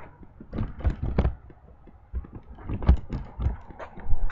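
Handling noise: irregular clicks and knocks with dull low thumps, coming in three clusters.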